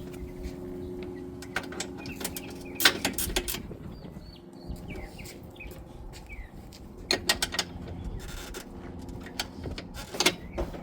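Metal clinks and knocks in short clusters from tools and parts being worked on a UTV's rear sway bar bracket, over a steady low hum, with birds chirping faintly.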